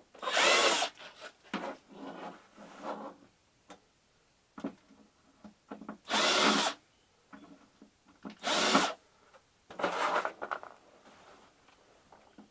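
Power drill with a screwdriver bit running in short bursts of about half a second, four times, backing screws out of a flat screen TV's casing. Between the bursts there are light clicks and rattles of the screws and parts.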